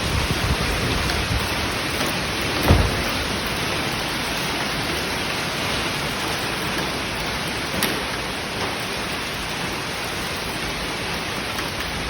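Hailstorm with heavy rain pelting down in a dense, steady hiss, with a louder thump about three seconds in and a sharp single strike near eight seconds.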